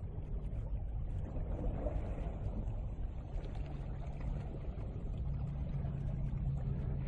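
Meltwater stream in spring flood, a steady low rush of flowing water.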